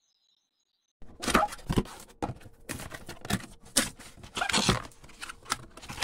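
Hands unpacking a cardboard box: about a second in, irregular rustling, crinkling and clicking of a foam packing sheet and cardboard flaps being handled starts, with a faint steady hum underneath.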